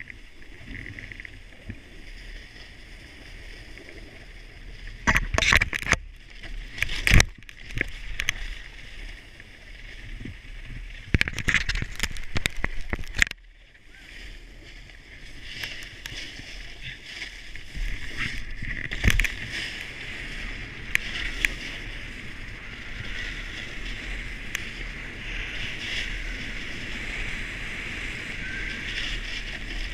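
Snowboard sliding and carving down a groomed run: a steady scraping hiss of the board on packed snow, broken by loud knocks and thuds over bumps in the first half and once more about two-thirds through.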